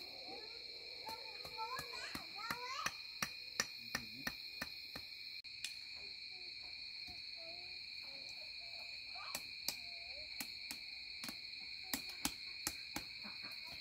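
Insects droning in two steady high tones, with a string of sharp clicks and knocks over it, thickest a few seconds in and again near the end.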